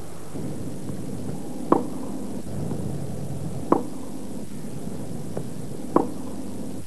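Tennis ball struck by a racket three times, about two seconds apart, over a steady hiss.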